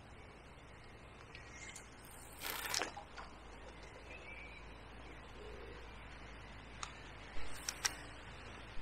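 Quiet outdoor background with a few faint bird chirps, a short rustle about two and a half seconds in, and several sharp handling clicks near the end.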